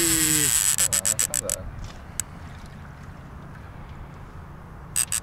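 Heavy conventional fishing reel clicking and whirring in rapid, irregular bursts during the fight with a big sturgeon, for about the first second and a half and again briefly near the end, over a low steady hum. A drawn-out falling voice fades out in the first half second.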